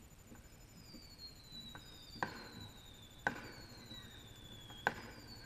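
Distant fireworks: a run of falling whistles, one after another, with three sharp pops from about two seconds in.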